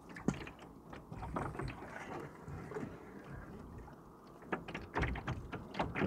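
Canoe paddle strokes in the water: splashing and dripping as the wooden-shafted paddle dips, pulls and lifts, with short sharp spatters scattered through it, busiest near the end.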